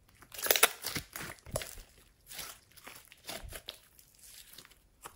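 Glossy glitter slime being squeezed and stretched by hand, giving off an irregular run of sticky crackles and pops, loudest about half a second in.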